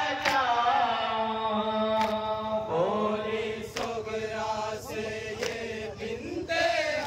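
A group of men chanting a nauha, a Shia lament, in unison through a microphone and PA. Sharp slaps of chest-beating (matam) keep time, one every second or two.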